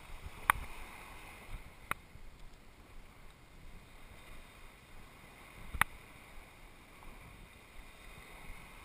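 Steady outdoor background of wind and small waves washing onto a sandy shore, with three sharp clicks about half a second, two seconds and six seconds in.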